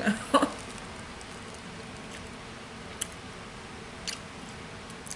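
Mouth chewing sticky salt water taffy, with a few sharp lip-smacking clicks about a second apart over a faint steady room hiss.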